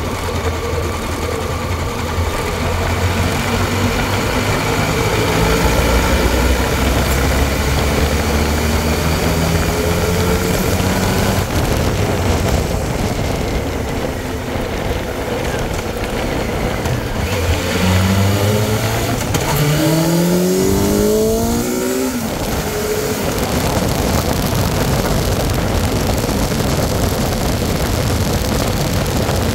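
The fuel-injected inline-four of a 2001 Honda CBR1100XX Super Blackbird pulls at low revs in top gear up a climb, its pitch rising slowly, without jerking or choking. About 18 seconds in, the revs climb steeply for about four seconds under hard acceleration. After that, wind rush over the microphone takes over at speed.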